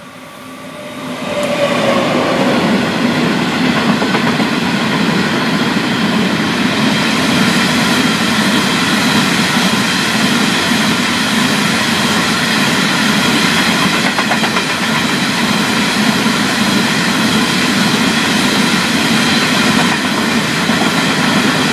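Pacific National TT-class diesel locomotive passing close at speed, its engine note dropping in pitch as it goes by about two seconds in. A loud, steady rumble of the hopper wagons' wheels on the rails follows.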